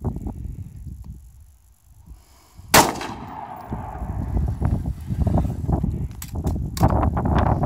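A single rifle shot about three seconds in, with its echo dying away over about a second, over steady wind rumbling on the microphone.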